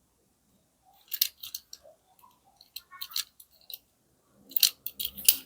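Packaging of a small die-cast toy car being handled and opened: three clusters of crisp crackles and clicks.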